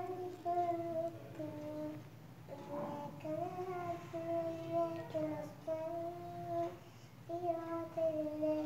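A young girl reciting her prayer aloud in a sing-song chant, holding long even notes in phrases of a second or two with short breaths between them.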